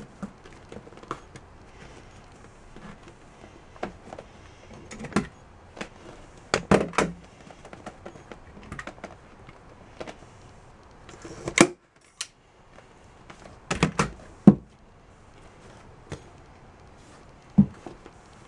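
Irregular clicks, taps and knocks as an upholstered mini bike seat and its metal mounting bracket are handled and turned over on a wooden workbench. The sharpest knocks come in clusters about seven, twelve and fourteen seconds in, with one more near the end.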